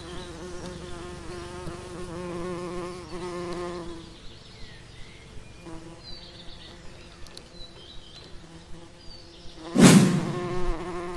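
Honeybees buzzing steadily over the open top bars of a hive, a wavering hum. About ten seconds in there is a brief, loud rustle as the burlap sack is pulled over the hive.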